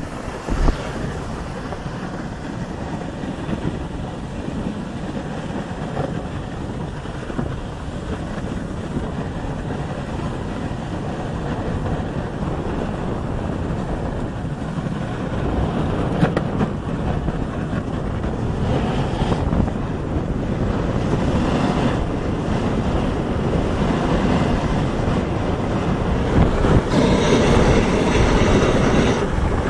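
Steady rushing noise of wind buffeting the phone's microphone, with the rattle and scrape of a sled running over packed snow on a downhill run. It grows louder toward the end.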